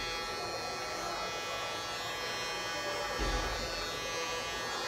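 Cordless electric hair clipper running with a steady buzz as it trims the hair at the sideburn and cheek. There is a brief low bump about three seconds in.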